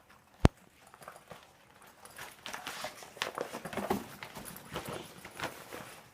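A sharp click about half a second in, then a few seconds of irregular knocking and rustling as a hoverboard carry bag and hoverboard are handled.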